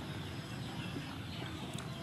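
Outdoor rural ambience: a steady background hiss with faint, scattered bird chirps.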